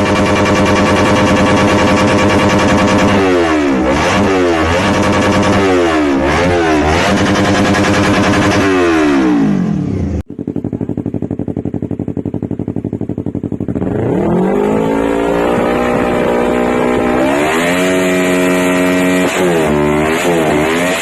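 Yamaha R3/MT-03 321 cc parallel-twin engine through an Akrapovic GP Line full exhaust system, blipped again and again in quick revs that rise and fall back. It breaks off suddenly about ten seconds in, idles steadily for a few seconds, then climbs and is blipped several more times.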